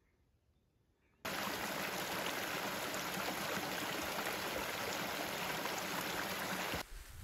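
Rushing mountain stream: a steady, even rush of water that starts suddenly about a second in and cuts off near the end.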